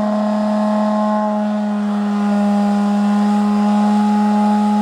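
Electric hand sander running steadily on a wooden board, a constant motor hum whose tone shifts slightly and gets a little louder about two seconds in.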